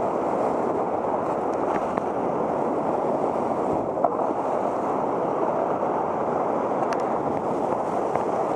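Whitewater rapid rushing and crashing around an inflatable raft, with waves breaking over the bow: a steady, dense, somewhat muffled roar of water that does not let up.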